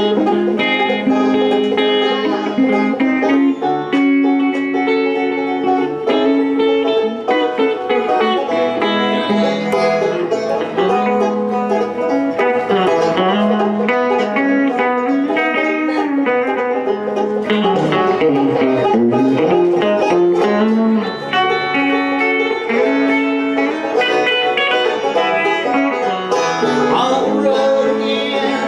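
Live instrumental bluegrass-country music: a banjo picking quick notes alongside an electric guitar, with a low line stepping up and down beneath. There is no singing.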